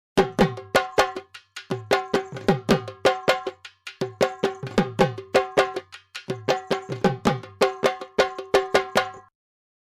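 Background percussion music: repeating patterns of sharp wood-block-like clicks over a drum whose low notes bend downward, in phrases of about two seconds. It stops just before the end.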